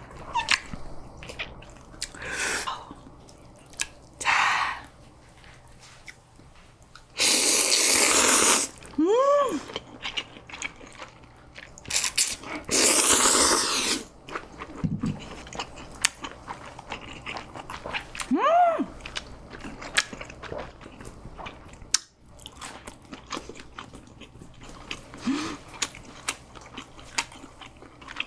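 Close-miked chewing and biting of food, with many small wet mouth clicks and crunches. Twice, a loud rushing noise lasts a second or two.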